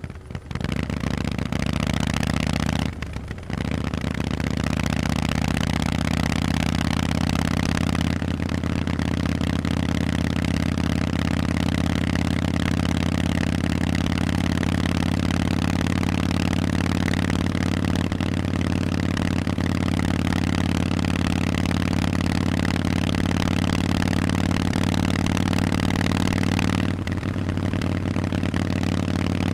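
Harley-Davidson Forty-Eight's air-cooled V-twin running loud through Vance & Hines exhausts. It comes up sharply about half a second in and drops off briefly about three seconds in. It then holds a steady pitch, easing off briefly near the end.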